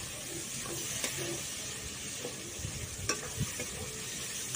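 Chopped onions sizzling as they fry in hot mustard oil in a steel kadai, with a metal spatula stirring and scraping against the pan. The spatula knocks on the pan a few times.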